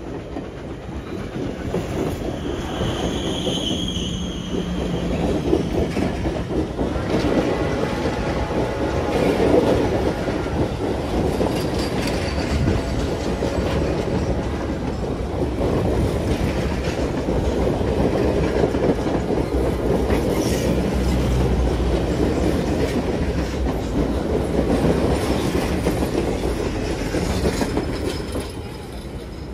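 Passenger coaches of a steam excursion train rolling past close by, steel wheels clacking steadily over the rail joints, with a brief high wheel squeal a few seconds in. The sound falls away near the end as the last car goes by.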